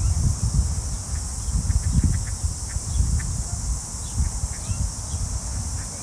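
Steady high-pitched chorus of cicadas in the trees, under gusty wind rumbling on the microphone, which is the loudest sound. A few short faint bird chirps.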